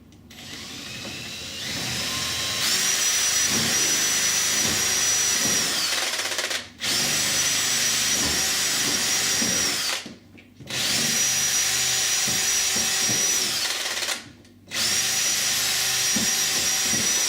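Power drill with a 9 mm metal bit boring out holes in a uPVC door to take jack plugs. It runs in four bursts of three to four seconds each, and the motor's whine drops as each burst stops.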